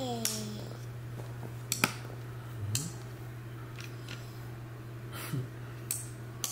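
Scattered sharp clicks of buttons and toggle switches being worked on a wooden toddler busy board, about six at uneven intervals, over a steady low hum.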